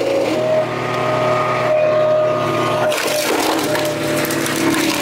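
Wolfe Ridge 35 HO log splitter running, its hydraulic ram driving an ash round through the wedge. About three seconds in the wood cracks apart and the engine note sags under the load, then picks back up.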